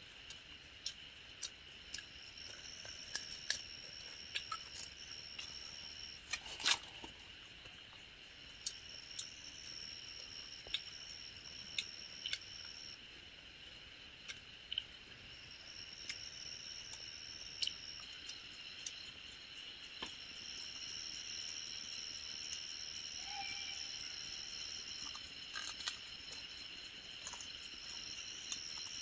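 Night insects calling in a steady chorus, with a higher trill that starts and stops every few seconds. Scattered small clicks and crackles from hands tearing roasted meat off a bamboo skewer; the loudest comes about seven seconds in.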